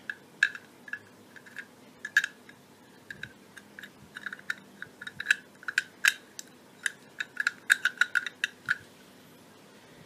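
Handling noise: a run of small, irregular clicks and taps, sparse at first and coming several a second in the second half.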